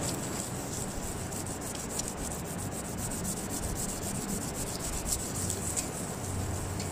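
A small piece of red brass being rubbed back and forth by hand on a sheet of sandpaper, a steady rapid scratchy rasping as its face is sanded flat.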